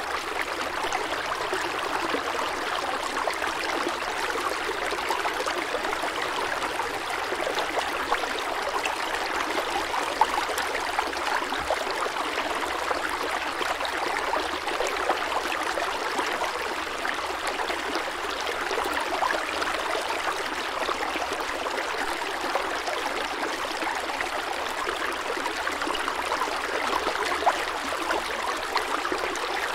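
Steady running-water sound, a stream-like trickle and rush with a fine crackling texture, holding an even level throughout.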